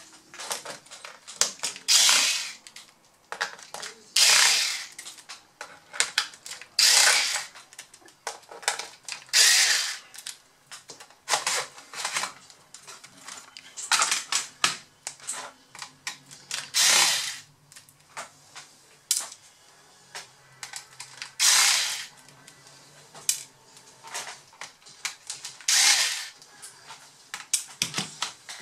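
Cordless electric screwdriver backing the bottom-case screws out of a Lenovo B50-80 laptop in about ten short runs, one every two to three seconds, with small clicks of screws and tools between them.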